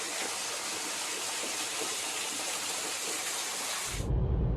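Steady rushing of falling water from a waterfall. About four seconds in it cuts off abruptly and a low rumble of road noise inside a moving car takes over.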